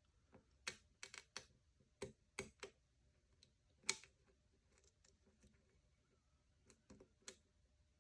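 Faint, irregular clicks and ticks of a lock pick and tension wrench working the pin stack of a 5-pin GAR PO Box cam lock, with one sharper click about four seconds in.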